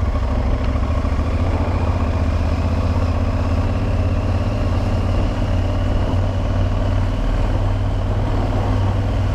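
Aprilia Tuareg 660's parallel-twin engine running steadily at low revs, with no revving.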